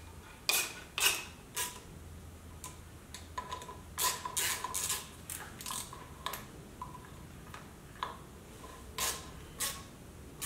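A hex key turning the button-head screws that fasten an air filter to its backing plate, giving an irregular run of short metallic clicks and rasps with small pauses between turns.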